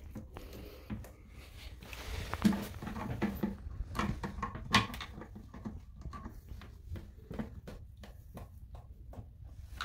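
Irregular clicks and knocks of plastic being handled as a bidet attachment is fitted and tied in place on a toilet, with two louder knocks about two and a half and five seconds in.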